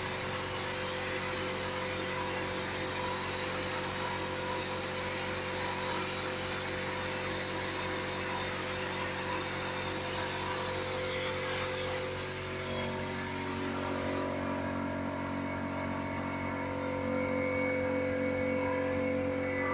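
Water jet hissing as it sprays onto a screen-printing mesh to wash out the masked stencil, over a steady machine hum. The spray hiss stops about two-thirds of the way through while the hum carries on.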